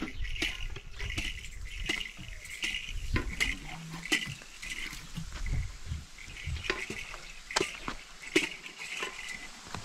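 Scattered clinks and knocks of utensils on cookware, over crickets chirping in short repeated bursts.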